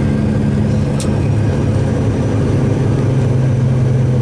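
Truck engine and road noise heard inside the cab while cruising: a steady, loud drone with a low engine hum. There is one brief high squeak about a second in.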